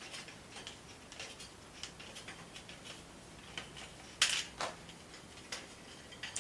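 Scattered light clicks and taps from hands working small plastic and metal parts while fastening zip ties on a grow shelf, with one sharper click about four seconds in.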